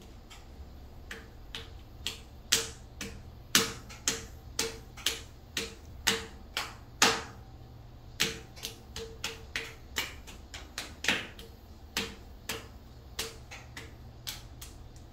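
Electric potter's wheel running with a steady low hum while a lump of clay is worked by hand on it, with sharp clicks about twice a second throughout.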